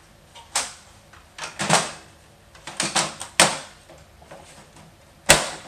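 A series of sharp hard-plastic knocks and clicks, five or six of them, the loudest a little after five seconds in: the Macintosh II's plastic case being handled and closed up after the repair.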